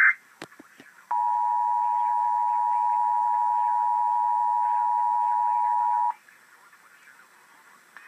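Emergency Alert System two-tone attention signal sounding steadily for about five seconds, starting about a second in and cutting off sharply. It comes right after the end of a burst of the alert's digital data header and a few short clicks. It signals that a National Weather Service Severe Thunderstorm Warning message follows.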